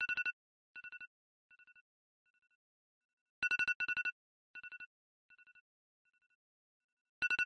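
Mobile phone ringing with a beeping tone: loud groups of rapid high beeps come about every four seconds, each followed by fainter echoing repeats.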